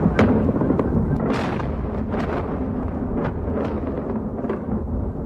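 Explosions and gunfire from an air bombardment of a city at night: a continuous low rumble with sharp cracks about once or twice a second.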